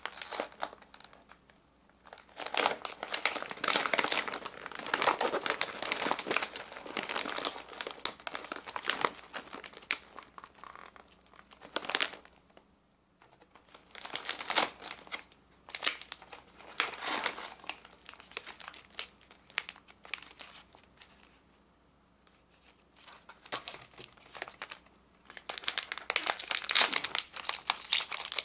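Plastic snack wrappers crinkling as they are handled and pulled from a packed plastic stocking, in irregular bursts with short pauses. Near the end comes the loudest stretch, as a foil-lined corn-stick snack wrapper is torn open.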